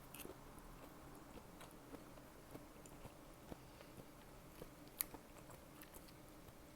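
Faint, close-miked chewing and biting of food, with scattered small wet clicks and one sharper click about five seconds in.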